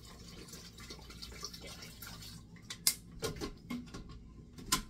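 Water poured from a bottle into a blender jug, a faint trickling hiss. From about three seconds in come several sharp clicks and knocks of hard plastic.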